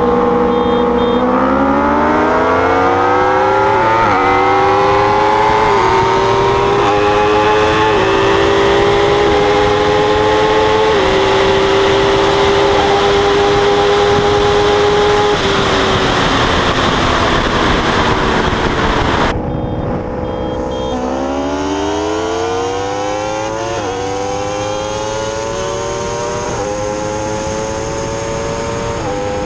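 Inline-four sport bike engine accelerating hard through the gears: the pitch climbs in each gear and drops at every upshift, about every two seconds. At high speed the engine note is buried under rushing wind. After an abrupt cut, a second run climbs through the gears the same way.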